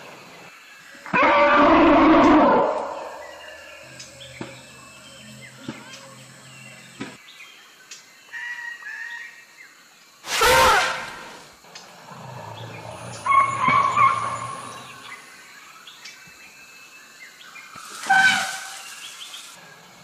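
Asian elephants trumpeting in alarm at a pack of dholes, four loud calls about a second in, around ten seconds, around thirteen seconds and near the end. Faint high chirps come between the calls.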